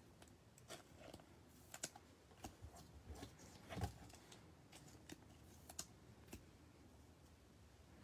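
Faint clicks and plastic rustles of baseball trading cards being handled and slid into soft plastic sleeves on a tabletop. Scattered small ticks and taps, with a slightly louder tap about four seconds in, stop about six and a half seconds in.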